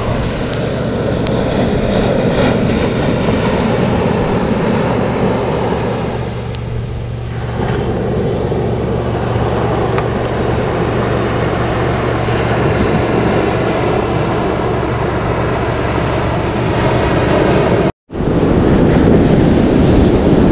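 Ocean surf breaking and washing on the beach, with wind rushing over the microphone in a loud, steady roar. Near the end the sound cuts out for a moment, then carries on.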